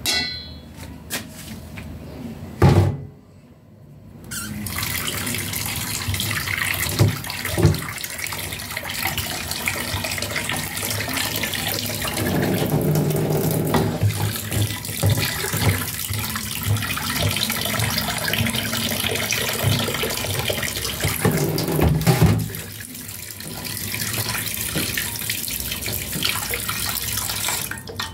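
Water running steadily from a kitchen tap, an even rushing hiss that starts about four seconds in.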